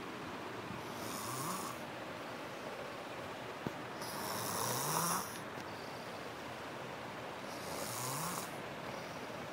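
A sleeper snoring: three snores about three seconds apart, each a hissing breath with a short rising tone, the middle one the loudest. A single sharp click comes between the first and second snores.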